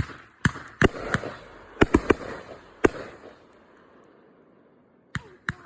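Sunwing "Melted Neon" 500g consumer firework cake firing: about eight sharp bangs in quick, uneven succession over the first three seconds, then a lull of about two seconds, and two more bangs near the end.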